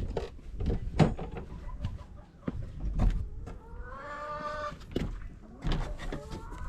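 Chickens calling: a long, drawn-out hen call with a wavering pitch about four seconds in and another call near the end, among scattered knocks and rustling.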